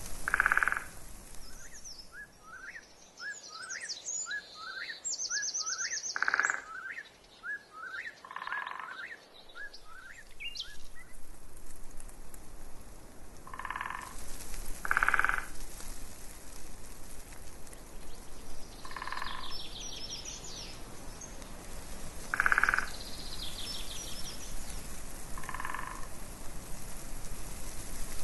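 Frogs croaking at intervals of a few seconds, each croak about half a second long. Songbirds call alongside: a quick run of short rising chirps through the first third, and high trills twice.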